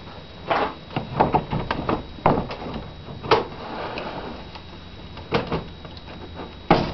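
Irregular knocks and scraping as a boat's rotary steering cable is handled and positioned by hand. The sharpest knocks come about two and three seconds in and near the end.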